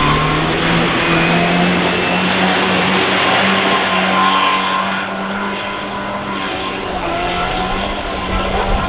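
Chevrolet Niva engine held at high revs as it drives flat out through a flooded mud bog, its tyres churning mud and water. The engine note climbs in the first second, then holds steady, easing a little about halfway through as the car pulls away.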